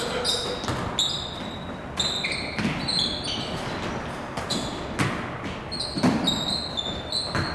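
Basketball game play on a hardwood gym court: the ball bouncing and striking, several sharp knocks, with short high squeaks of sneakers on the floor throughout. The sound rings in the large hall.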